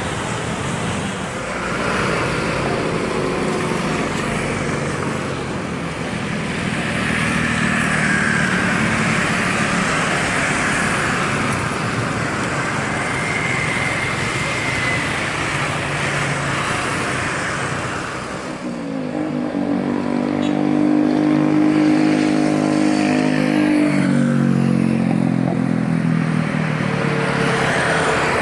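Rolls-Royce Trent 700 jet engines of an Airbus A330-300 running as it rolls out and taxis after landing, a steady rushing noise. About 18 seconds in, this gives way to the louder Trent XWB engines of an Airbus A350-900 climbing out after take-off, with a slowly falling drone.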